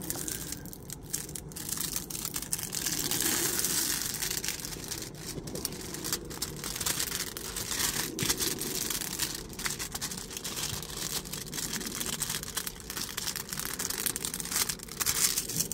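Clear plastic film on a diamond painting canvas crinkling and rustling as it is lifted and pressed back down, smoothed with a plastic straightening tool to push out air bubbles, with many small crackles.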